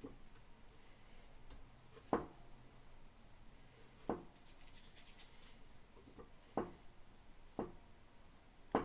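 Sharp taps or knocks of hard objects, five of them one to two and a half seconds apart, with a short run of faint high clinking or rattling between the second and third.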